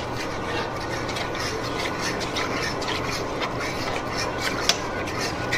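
A metal fork whisking a thick butter, flour and milk white sauce in a skillet, scraping and tapping against the pan in a steady rasping stir, with one sharper clink near the end.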